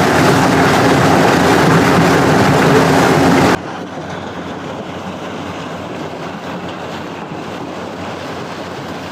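Yanmar combine harvester running steadily while harvesting maize, a loud machine rumble mixed with wind noise. A little over three seconds in, it cuts suddenly to a much quieter, steady rumble.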